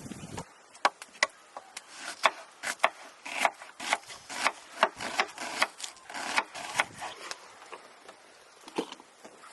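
A hand utensil scraping in quick, short strokes, about two or three a second, with the strokes stopping about seven seconds in and one more coming shortly after.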